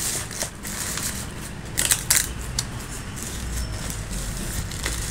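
Black plastic mailer wrapping crinkling and crackling as it is pulled off a cardboard box, with a few sharp, loud crackles about two seconds in.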